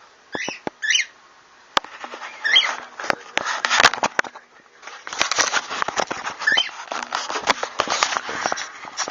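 Baby cockatiels giving a few short, high chirps over a dense run of scratchy clicks and rustling as the chicks move about.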